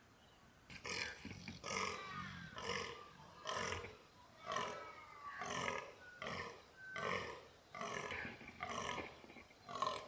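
Fallow buck croaking in the rut: a regular series of about eleven croaks, roughly one a second, starting about a second in. This is the buck's rutting call for dominance.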